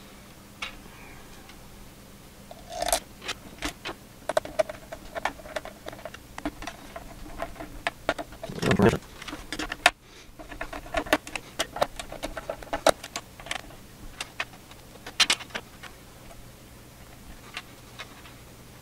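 Irregular clicks, taps and light rattles of small hard parts being handled: plastic spacers, metal CPU-cooler mounting brackets and screws being picked up and set onto the motherboard's socket posts, with a few louder knocks.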